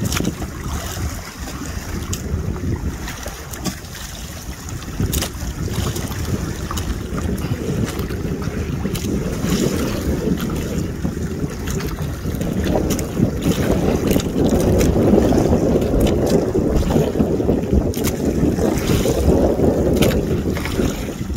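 Water churning and splashing inside a netted pen, with wind buffeting the microphone. The splashing grows louder a little past halfway.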